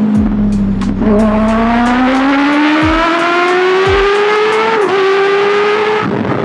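Kawasaki ZX6R's 636cc inline-four under acceleration. The exhaust note dips briefly about a second in, then climbs steadily in pitch for several seconds. A quick upshift break comes near five seconds. About six seconds in the note drops away, leaving wind rush on the microphone.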